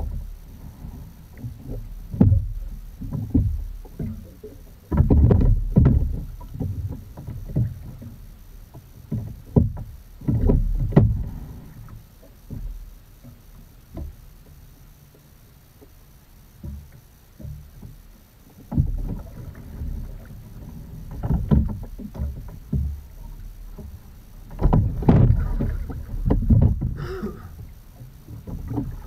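Edon TS515 rowing shell being sculled: water sloshing and splashing against the hull and the oars working through the water, coming in irregular bursts with a quieter stretch midway.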